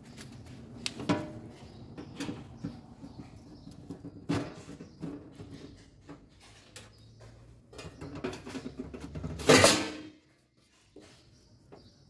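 Sheet-metal back cover of a Super General washing machine being worked loose and taken off: scattered clicks and knocks, with one louder clatter about nine and a half seconds in.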